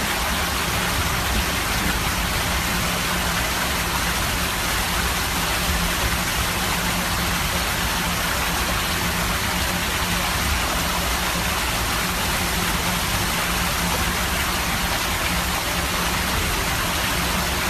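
Water rushing steadily out of water slide tubes and splashing down the open slide runouts, a constant loud rush.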